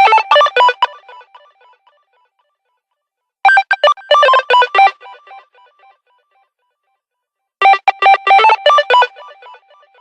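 Phone ringtone playing a short, quick melody of bright, sharply struck notes that repeats about every four seconds, three times, each phrase fading out into a brief silence before the next.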